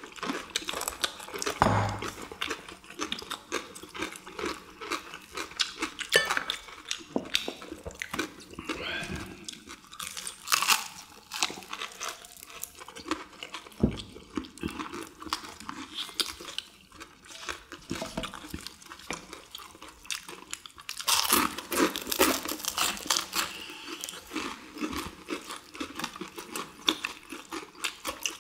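Close-up crunching and chewing of crisp deep-fried chicken in perilla-leaf batter, several people biting into the crust in irregular bites, heaviest about 21 seconds in. A dull thump about two seconds in and another near 14 seconds.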